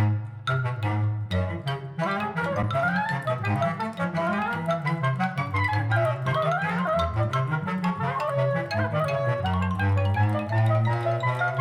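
Instrumental music played back through Elfton Vegas II loudspeakers and picked up in the room: quick rising and falling melodic runs over a moving low bass line.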